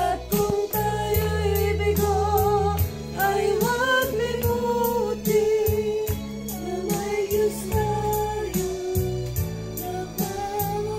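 Music: a song with a singer's wavering, held melody over steady bass notes and a regular beat.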